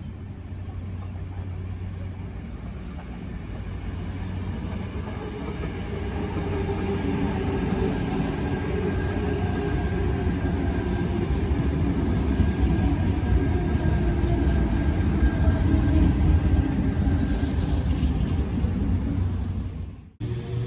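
Train running on the rails and growing louder as it comes near: a deep rumble with steady whining tones above it. The sound cuts off suddenly near the end.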